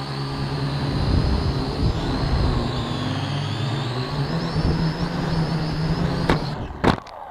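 Small quadcopter drone's electric motors and propellers whining, heard from its onboard camera, the high pitch wandering up and down as it manoeuvres. Near the end there are a couple of sharp knocks, and the motor sound stops.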